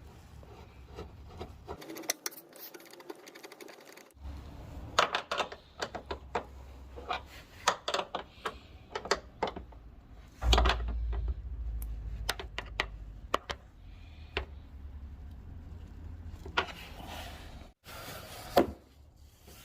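Hand tools working a bolt tight on the hood strut's mounting spacer: a run of sharp, irregular metallic clicks and taps, with a few denser stretches of quick clicking.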